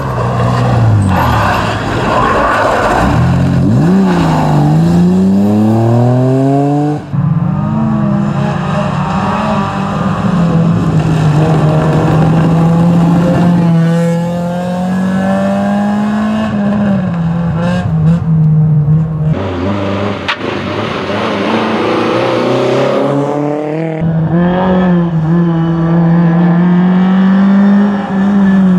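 Rally car engines driven hard past the camera in turn, among them a BMW E30, a Honda Civic and a Škoda Felicia. The revs climb sharply through quick gear changes, then hold high and steady. The sound changes abruptly several times as one car gives way to the next.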